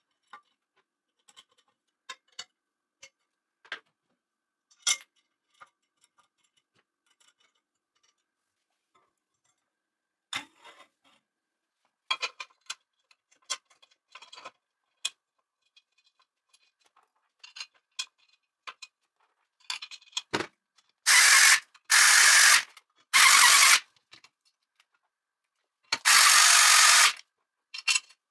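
Light clicks and clinks of aluminium frame parts and screws being handled. Then, about three quarters of the way in, four short whirring bursts of an electric screwdriver driving the screws that fasten the CNC router's aluminium side plate.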